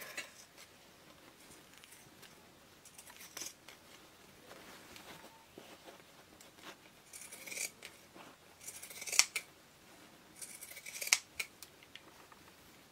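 Pinking shears snipping through cotton fabric: a run of cuts, faint at first and louder in the second half, with sharp blade closes about nine and eleven seconds in.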